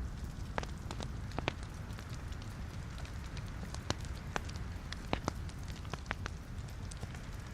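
Wood logs burning in a fireplace: a steady low rumble and hiss of the flames with frequent sharp, irregular crackles and pops.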